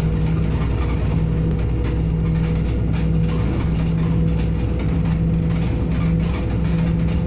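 Wright Gemini-bodied DAF double-decker bus heard from inside the passenger saloon while driving: a steady low engine and drivetrain drone, with a hum that drops out and comes back about once a second.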